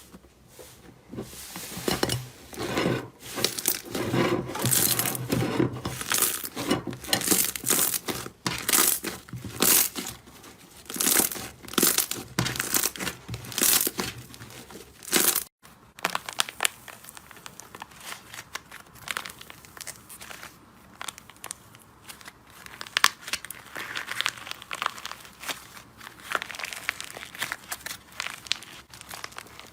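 Slime being squeezed, stretched and poked by hand, with dense crackling and popping. A short break about halfway through leads into a quieter, sparser clip of the same kind of crackle.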